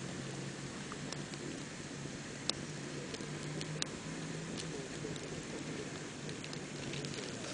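Open wood campfire burning with a steady crackle of small ticks and a couple of sharper pops.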